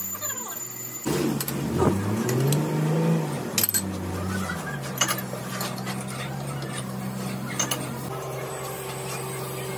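Metal lathe motor starting up about a second in, its pitch swinging up and down as it comes up to speed, then running with a steady hum. A few short metallic clinks sound over it.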